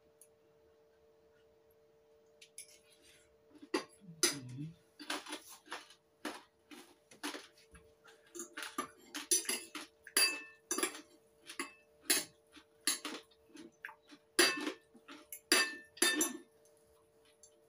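Metal fork and spoon clinking and scraping against a ceramic plate of noodles, in quick irregular strikes that begin about four seconds in. A steady faint hum sits underneath.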